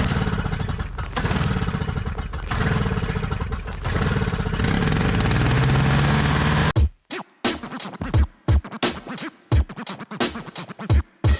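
An engine running steadily, its pitch rising slightly near the end. About seven seconds in it cuts off abruptly into hip-hop music with punchy beats and record scratching.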